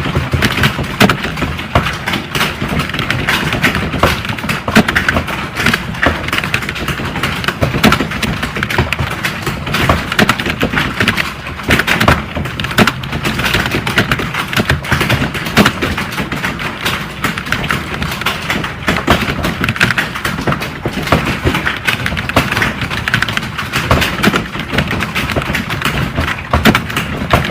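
Fast, continuous typing on a computer keyboard: a steady stream of rapid keystroke clicks and taps with no pauses.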